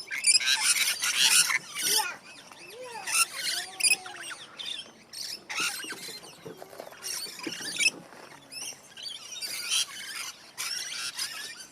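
Aviary birds calling: bursts of high chirps and squeals that come and go, loudest in the first two seconds.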